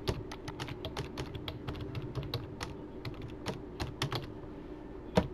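Typing on a computer keyboard: a quick, irregular run of keystroke clicks, with one louder key press near the end.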